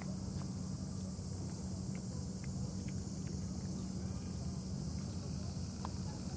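Steady outdoor ambience: a low rumble and an even high hiss, with a few faint, scattered small ticks.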